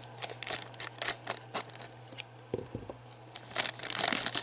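Clear plastic packaging around a pre-painted miniature being handled and unwrapped, crinkling with scattered sharp crackles, then a denser burst of crinkling about three and a half seconds in.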